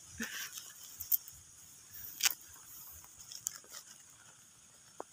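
Faint rustles and a few sharp clicks as a large bird-shaped kite is handled and its frame adjusted, over a steady high outdoor hiss.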